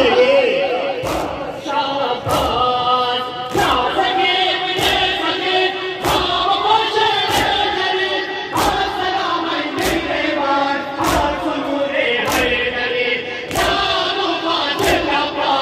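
Large crowd of mourners chanting a noha in chorus, with unison chest-beating (matam) thumps landing together about every second and a quarter.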